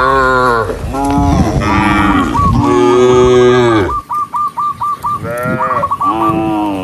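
Several cows mooing one after another: long calls that slide down in pitch, a short break about four seconds in, then another moo. A quick run of short repeated high notes sounds over and between the moos.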